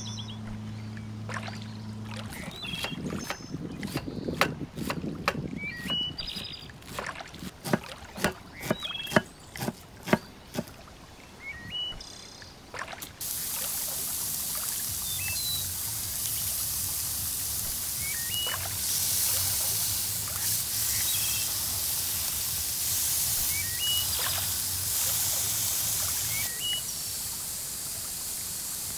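A knife knocks sharply on a wooden cutting board about a dozen times as tomatoes are sliced. About 13 seconds in this gives way to the steady sizzle of burger patties frying on a hot grill plate. Small birds chirp now and then throughout.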